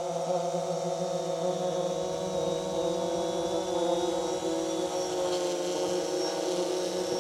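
Multirotor drone's propellers humming steadily in flight, a layered buzz of several tones whose pitch sags slightly and recovers about five seconds in.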